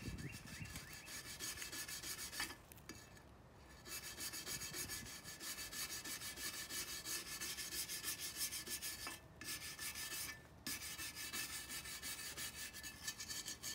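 Wire brush scrubbing back and forth over a bicycle frame in quick repeated strokes, scraping off paint softened by paint stripper. It stops briefly a few times: once about three seconds in and twice more around nine to eleven seconds in.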